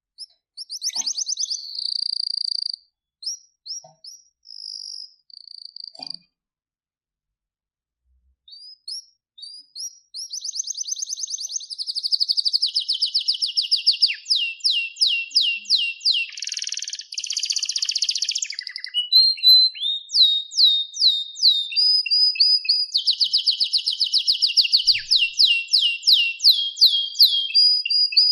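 Domestic canary singing: a few short trilled phrases, a pause of a couple of seconds, then from about ten seconds in a long unbroken song of rapid repeated trills and rolls, high-pitched and bright.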